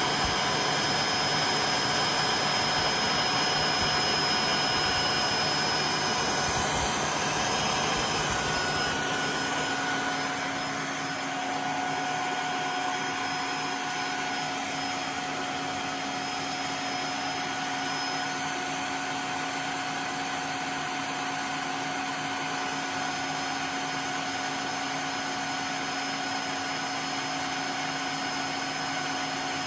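Tineco iFloor 3 wet-dry floor washer running its self-cleaning cycle: the vacuum motor runs steadily, drawing the cleaning water up through the extractor tube into the dirty-water tank. About ten seconds in the sound drops slightly and settles into a steadier hum with a new low tone.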